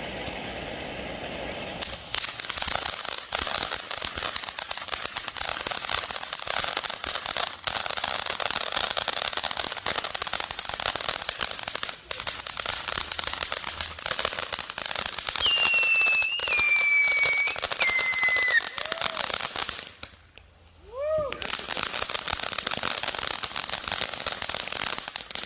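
Ground fountain firework (Showtime "Around the World") spraying: a hiss at first, then about two seconds in a dense crackling sets in. A few high squealing whistles come in over the crackle in the later part. The crackle breaks off for a moment near the end with a short whistle, resumes, and then stops suddenly.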